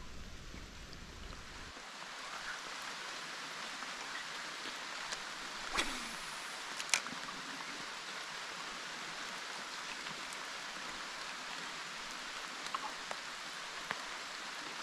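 Steady hiss of rain falling, with two short sharp clicks about six and seven seconds in.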